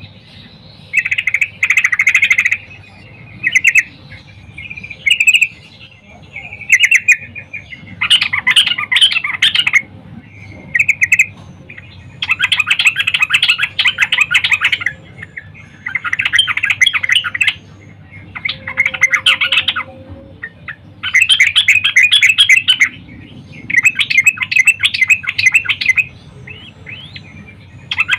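Female yellow-vented bulbul (trucukan) calling in bursts of fast, bubbly chattering, each a second or two long and repeated with short pauses. This is the female's call, used to draw a male bulbul into singing.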